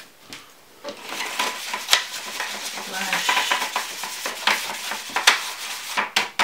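Acrylic paint being stirred with a little water in an aluminium foil pie tin: a utensil scraping and clicking against the foil, with a few sharper ticks. It is the stuck, partly dried paint being worked loose and thinned.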